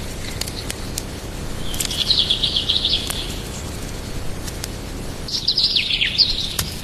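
Bird chirping in two short bursts of rapid, high, repeated notes, about two seconds in and again near five seconds, over a low rumble with scattered clicks.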